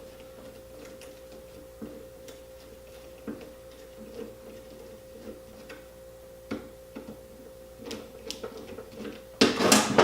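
Scattered light clicks and taps of metal drill parts being handled and fitted together during reassembly, over a faint steady hum. About nine and a half seconds in comes a sudden loud clatter of metal on metal.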